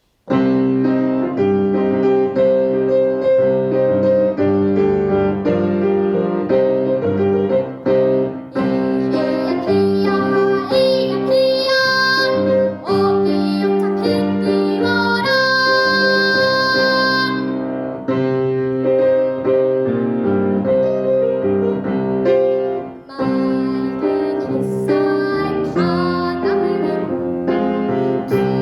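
A piano accompaniment starts abruptly and a young girl sings a Korean children's song over it, with long held, wavering high notes.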